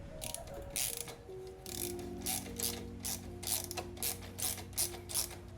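Hand socket ratchet clicking through a run of short strokes, about a dozen in five seconds, as the exhaust flange bolts are driven in.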